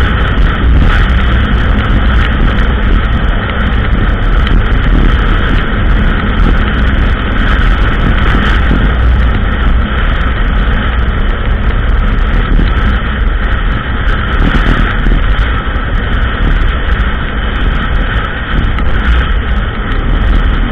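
ATV engine running steadily while riding, loud and unbroken, with a strong low rumble.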